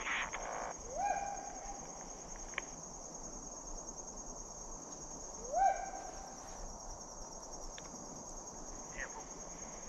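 Steady high-pitched insect chorus of crickets, with a hunting hound giving a drawn-out bay that rises and then holds, twice: about a second in and again, louder, past the middle.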